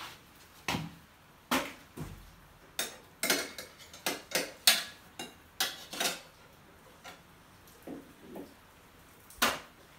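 Metal spoon clinking against the stainless-steel bowl of a Thermomix while a cinnamon stick and lemon peel are fished out of the infused milk: a dozen or so irregular sharp clinks, thickest in the middle and sparse near the end.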